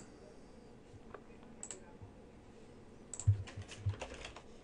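Computer mouse clicks, a few spaced apart, then a short burst of keyboard typing about three seconds in.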